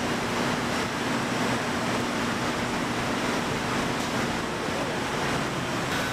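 Steady din of cabinet-factory machinery: a continuous noisy rush with a low hum under it. A thin high whine comes in near the end.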